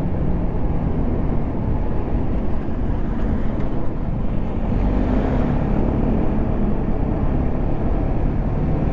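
TVS Apache RR 310's single-cylinder engine running at a steady cruise, heard from the rider's position with a dense low rush of wind noise over the microphone.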